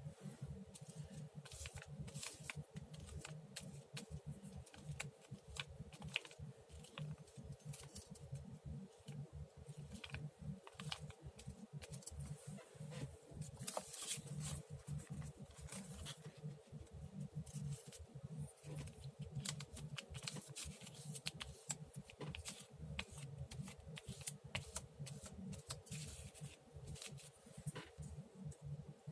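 Paper being handled and worked at a craft table: scattered soft rustles, crinkles and light taps of paper and tools, over a faint steady hum.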